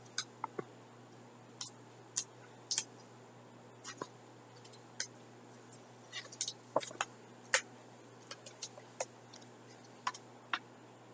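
Thin pre-cut wooden puzzle pieces being popped out of their sheet by hand: irregular small snaps and clicks, a few sharper ones in the middle.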